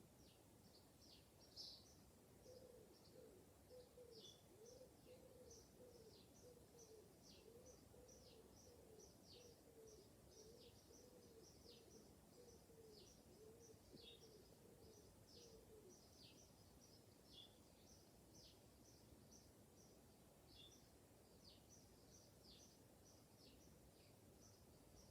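Faint birdsong: many short, high chirps that sweep downward, coming quickly one after another. A low, repeated call joins about two seconds in, roughly twice a second, and stops about two-thirds of the way through.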